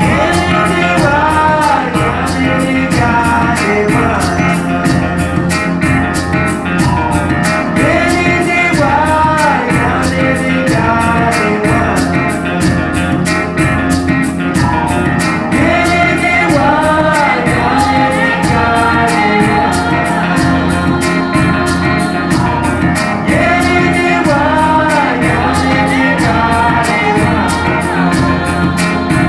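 Recorded music with singing over a steady beat, played loud through large horn loudspeakers in a listening room.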